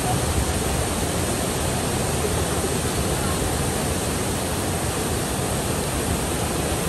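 Steady rushing of flowing water, an even hiss with no change in level.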